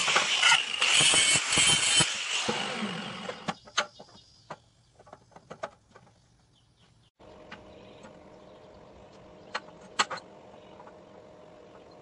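Angle grinder grinding steel, a loud rasping whine that shuts off about two seconds in and spins down. Then come light metallic clicks and knocks as the grinder is set down and the steel pieces are handled. Later there is a faint steady hum with a couple of sharp clicks of metal on the steel table.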